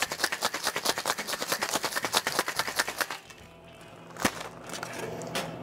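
Ice rattling hard and fast inside a metal cocktail shaker during a vigorous shake, stopping about three seconds in. A single sharp knock follows about a second later.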